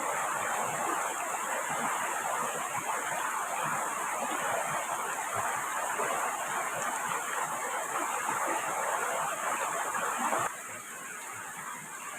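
Heavy rain falling steadily as a dense, even patter. About ten and a half seconds in it abruptly becomes quieter.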